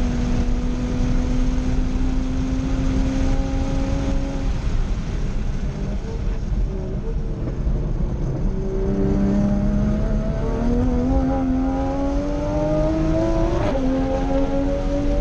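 Toyota GR Supra (A90) time-attack car's engine heard from inside the cabin at racing pace. It shifts up right at the start and pulls steadily, then under braking it drops through the gears in short stepped revs. After that it climbs again under full throttle and shifts up once more near the end, with road and wind noise underneath.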